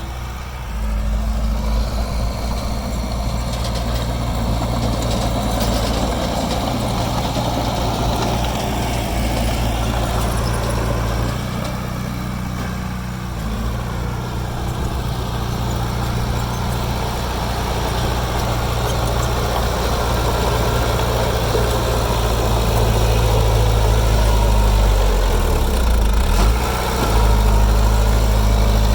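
Diesel engine of heavy earthmoving machinery running steadily, its pitch shifting now and then as the load changes, with a brief dip about 26 seconds in.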